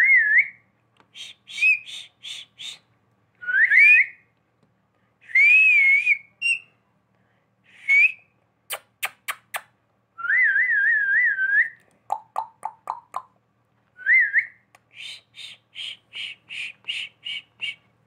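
Pet rose-ringed (ringneck) parakeet whistling on command in human-like notes: short rising and wavering whistles, runs of quick repeated chirps, and a few short falling chirps. Four sharp clicks come about nine seconds in.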